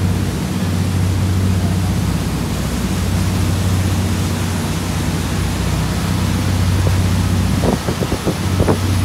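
Fishing boat's engine running steadily underway, a low even drone, over the rush of wind and the churning wake. Near the end, a few brief thumps or wind buffets break in.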